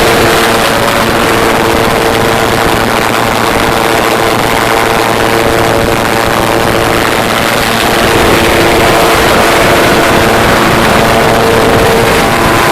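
Jetbike engine running steadily under power: a loud, even rushing noise with a steady tone held through it, getting a little louder about two-thirds of the way through.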